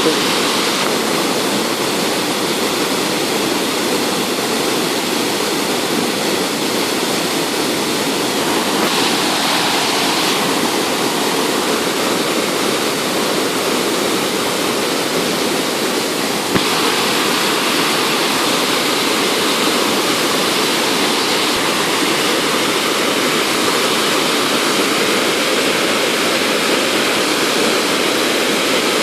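Waterfall pouring: a steady rush of falling water that gets slightly brighter a little past halfway.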